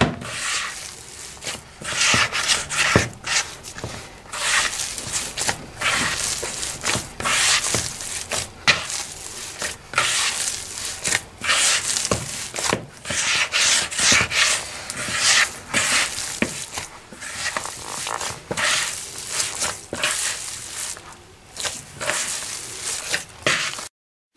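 Hands kneading soft, oily yogurt dough in a large bowl: repeated squishing and rubbing strokes, one after another. The sound cuts off abruptly near the end.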